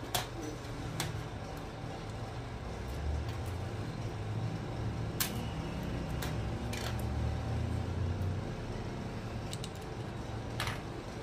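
Small steel parts of a diesel injection pump governor (springs, spring seats, shims) clicking and clinking as they are handled and set down on a metal bench, a handful of separate sharp clicks, over a steady low hum.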